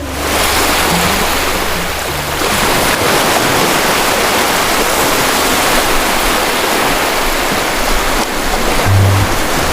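Sea waves washing over rocks and sand: a steady, loud rush of surf.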